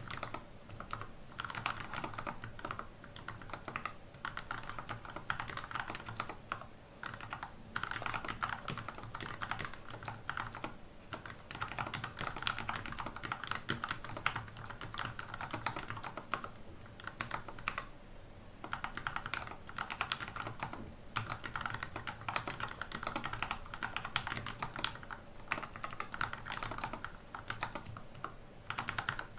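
Keystrokes on a THE40 keyboard during a typing test: a quick, continuous run of key clicks broken by brief pauses every few seconds.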